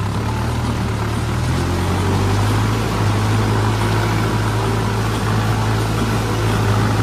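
Mahindra 265 DI tractor's three-cylinder diesel engine running steadily under load while puddling a flooded paddy field; the engine note shifts slightly and grows a little louder about a second and a half in.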